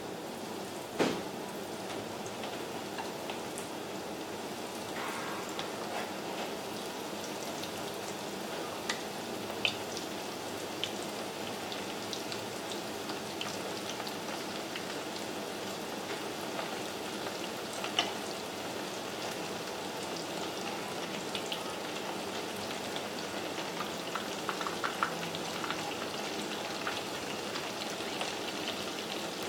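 Breaded squid rings deep-frying in hot oil in a frying pan: a steady crackling sizzle, with a few sharp pops and clicks.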